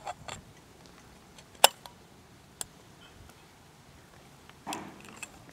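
Bimini frame fittings clicking together as the male ends of the bows are pushed into their sockets: a few short, sharp clicks, the loudest about a second and a half in.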